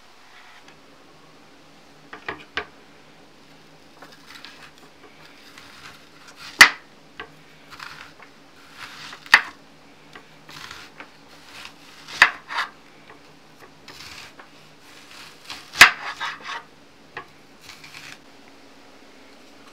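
Chef's knife slicing a whole onion crosswise into rounds on a plastic cutting board: short crunching cuts and sharp knocks of the blade on the board, four of them loud and a few seconds apart.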